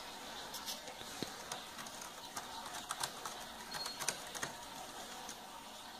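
Cat pawing and scratching at a cardboard scratcher, a run of light scratchy ticks and scrapes, thickest in the first four and a half seconds.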